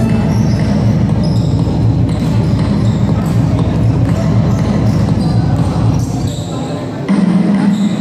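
Indoor basketball game: crowd voices and a basketball bouncing on the court, with short high squeaks over the top. The noise dips briefly about six seconds in, then picks up again.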